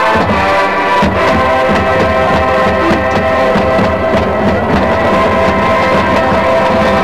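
Marching band playing: brass holding sustained chords over a steady pattern of drum hits.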